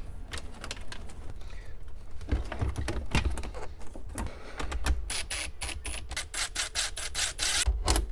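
Clicks and knocks of an aftermarket double-DIN radio being pushed into its dash opening. In the second half a cordless Ridgid 18V drill/driver runs in the mounting screws, giving a quick run of clicks with a thin high whine.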